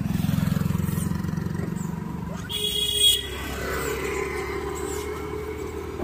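A motor vehicle passes close by, its engine running with a low rumble. About two and a half seconds in comes a short, high-pitched horn beep, followed by a steadier engine hum.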